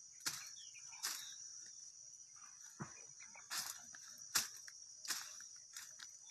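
A steady high insect chorus, cricket-like, with irregular crackles and rustles of dry stalks and leaves underfoot, about one a second.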